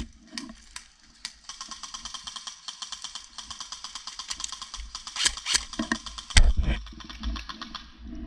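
A fast, even run of small ratcheting clicks lasting several seconds, broken near the end by three sharp airsoft rifle shots.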